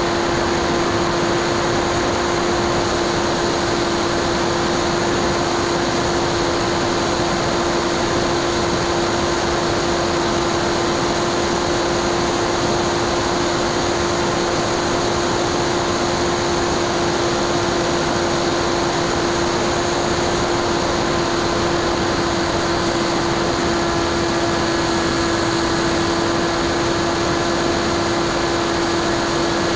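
Bixler 2 RC plane's NTM 35-30A 1400kv brushless outrunner motor spinning a 9x6 propeller in flight, a steady whine at constant throttle, heard from the onboard camera under a rush of airflow noise.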